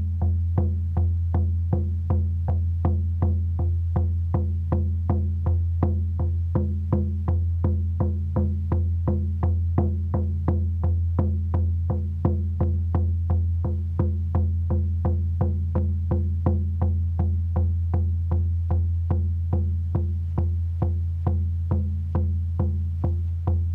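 Hand drum struck with a beater in a steady, even beat, each stroke a sharp hit over a deep, continuous low boom from the drum head.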